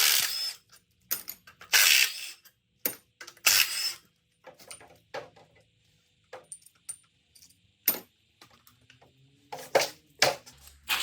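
Metal tools and engine parts clinking and clanking as they are handled, a series of separate sharp knocks with short pauses between them.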